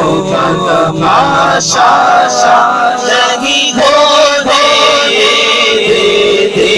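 Men singing an Urdu devotional naat into microphones, drawing out long wavering notes with no clear words.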